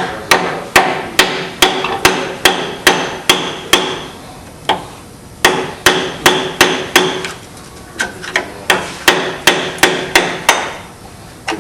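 Hammer blows on metal, struck in three runs of about two blows a second with short pauses, each ringing briefly: tapping the governor cover loose on a Turbo 350 automatic transmission during teardown.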